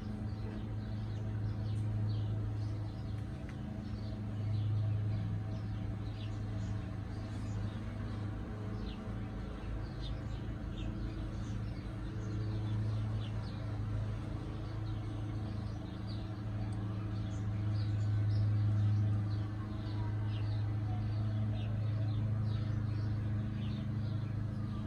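Steady low machine hum, with faint short bird chirps scattered through it and a slow falling tone about two-thirds of the way through.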